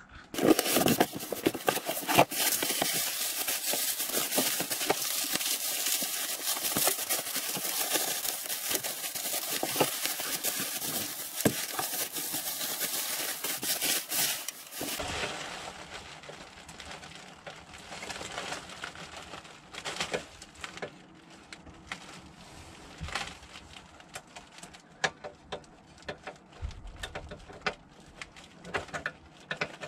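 Bubble wrap and cardboard packaging rustling and crackling as they are handled and pulled off an oven door. The sound is loud and dense for the first half, then drops abruptly to quieter, scattered crackles and clicks.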